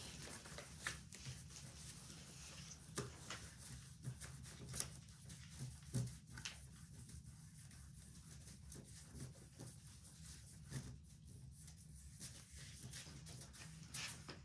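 Faint scratching and rubbing of oil pastels on paper, with a few light taps scattered through it.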